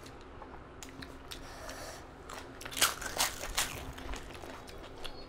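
Crisp papad being bitten, crunched and chewed by hand-fed mouthfuls: scattered crackles with a quick run of three or four loud crunches about three seconds in.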